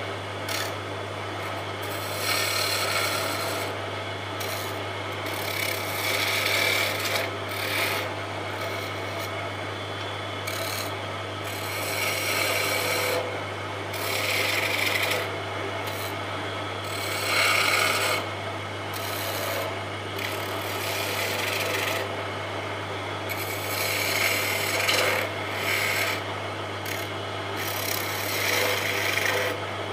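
Wood lathe turning a wooden spindle while a hand-held flat chisel scrapes and cuts it, the cutting hiss swelling and easing every second or two as the tool bites. A steady low hum runs underneath.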